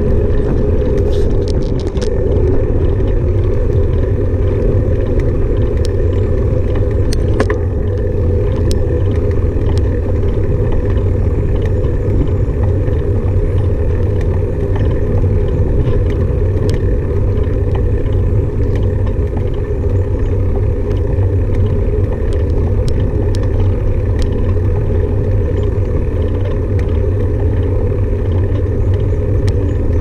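Car on the move: steady engine and road rumble, with a few faint clicks along the way.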